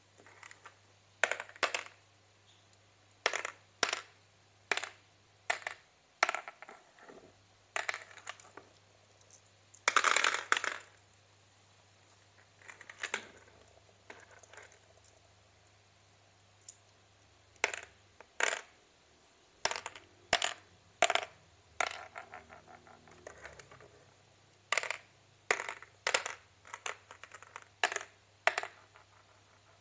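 Glass marbles clicking as they are dropped one at a time into the hollows of a plastic congkak board, in short irregular runs. There is a longer clatter of many marbles about ten seconds in.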